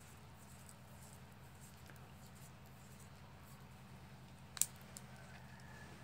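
Faint handling of the fan motor's connection wires by hand, with one sharp click about two-thirds of the way through, over a steady low hum.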